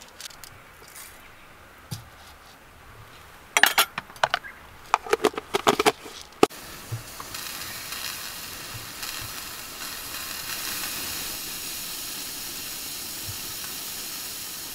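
Clatter of a plastic container of rice and cookware being handled for a few seconds, ending in a sharp click. Shortly after, a portable butane cassette stove's burner hisses steadily under a rice pot.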